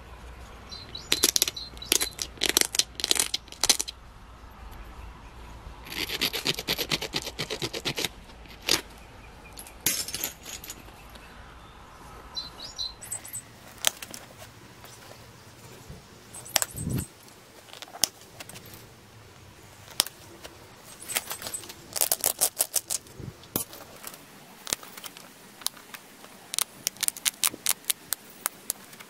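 Flint arrowhead being worked by hand on a leather pad: quick runs of scratchy strokes as the edge is rubbed with an abrading stone, and single sharp clicks as small flakes pop off under a pressure flaker.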